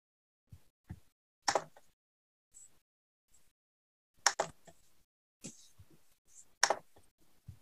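Scattered computer mouse clicks and light desk knocks, a few of them sharp and loud, with dead silence between them.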